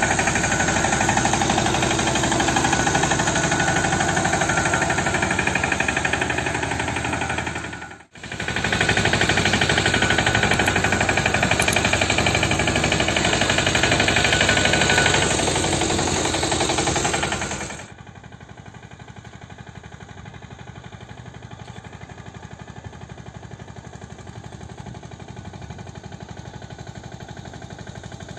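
DK Champion 10 HP mini tractor engine running with a rapid, steady knocking beat while driving its boom spray pump. The sound breaks off for an instant about eight seconds in, and from about eighteen seconds it is much quieter, heard from farther off.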